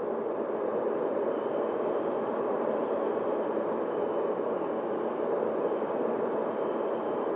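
Steady rushing air noise from a camera riding on an E-flite Opterra flying wing in flight, even and unchanging, with its weight in the low-middle range.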